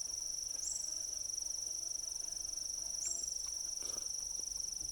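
A chorus of crickets, a steady high-pitched trill, with a short rising chirp repeating about every two and a half seconds.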